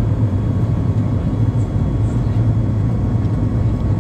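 Steady cabin noise of a Boeing 737 MAX 8 climbing out after takeoff: the deep drone of its CFM LEAP-1B engines and the rush of air past the fuselage, with a faint steady whine above it.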